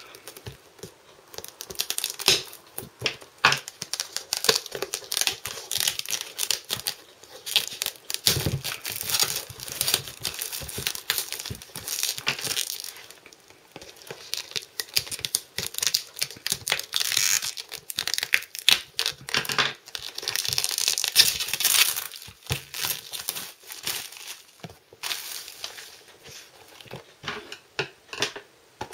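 Plastic shrink-wrap being cut with scissors and pulled off a cardboard box: irregular crinkling, crackling and tearing with handling clicks, coming in several louder spells.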